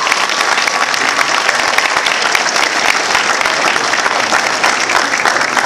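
Audience applauding, a dense steady clapping.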